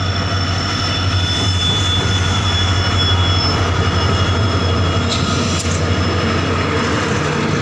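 Diesel locomotives running past close by: a loud, steady low engine drone over the rumble of wheels on rail, with a couple of sharp clanks about five seconds in.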